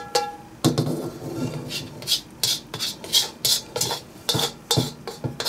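A spatula scraping tomato sauce and rigatoni out of a pan in quick repeated strokes, about three a second.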